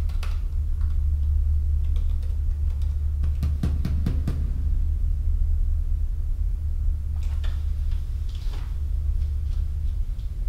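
A steady low hum with scattered light clicks and taps over it. There is a quick run of taps about three and a half seconds in, and a few louder scrapes and knocks around seven to nine seconds.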